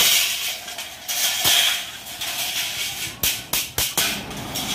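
Thin galvanized steel furring channels clattering and scraping against each other and the concrete floor as they are moved, with several sharp metal knocks, a quick cluster of them about three seconds in.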